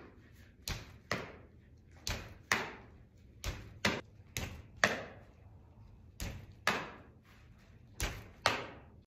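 A baseball repeatedly thrown against a steel-framed rebounder net and caught in a leather glove: six pairs of sharp smacks, each pair the ball striking the net and then popping into the glove about half a second later. Each smack echoes briefly.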